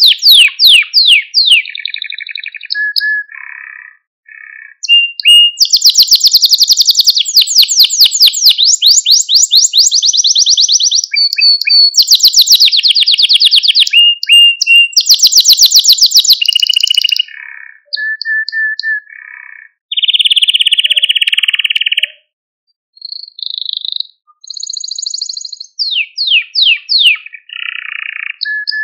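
Male domestic canary singing, phrase after phrase of rapid high trills and rolls with brief pauses between them.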